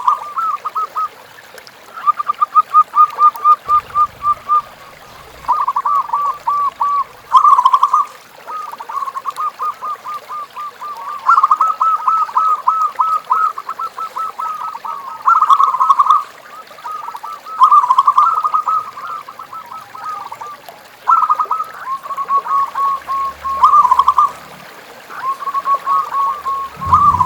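Zebra doves (perkutut) calling: runs of quick, staccato cooing notes, each run a second or a few seconds long with short breaks between, sounding like more than one bird calling in turn.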